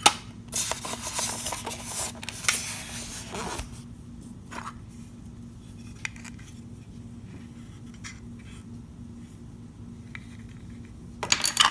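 Packaging and small plastic parts being handled: rustling for about three seconds, then a few faint clicks, and a quick run of sharp clicks near the end.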